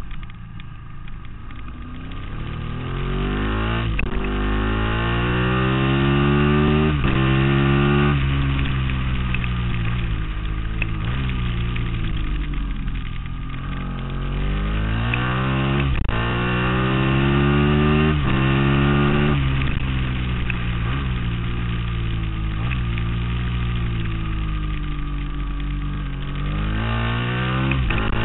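Ducati Monster S4Rs's 998 cc Testastretta L-twin engine heard from onboard at racing speed, revving hard up through the gears with a sudden drop in pitch at each upshift. Twice it eases off into a slower, lower note before pulling up through the revs again.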